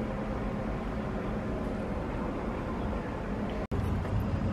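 Steady low rumble of outdoor city background noise with a faint hum, dropping out for an instant about three and a half seconds in and then carrying on a little louder.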